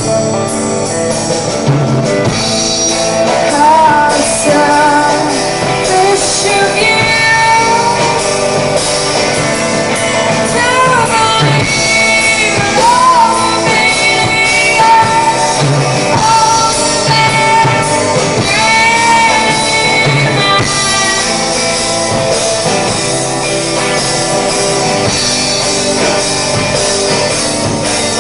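Live rock performance: a woman singing over electric guitar. The vocal drops out about three quarters of the way through, leaving the guitar and band playing on.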